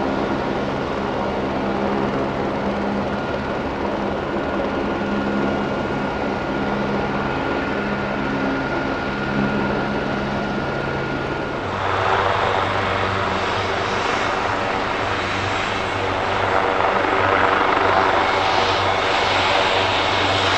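Leonardo AW139 twin-turboshaft helicopter running on the ground with its rotors turning: a steady turbine and rotor hum with a thin high whine. About twelve seconds in the sound turns louder and fuller, with more low hum and more rushing noise.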